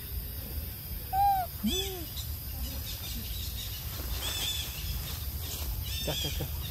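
Animal calls: a few short hooting notes, each rising and falling in pitch, the loudest about a second in, followed later by higher chirping calls, over a steady low rumble.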